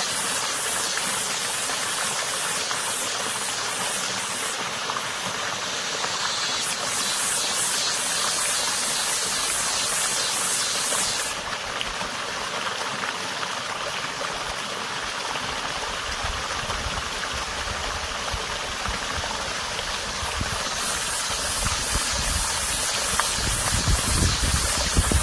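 Running water of a small creek, with a cicada singing high over it, its song pulsing rapidly at times and held steady at others. A low rumble joins in past the middle.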